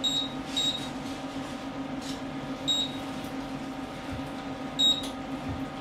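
Perforated steel insert of a stainless steel pasta pot lifted out to drain the bucatini: a few short, ringing metallic clinks as it knocks against the pot, over a steady mechanical hum.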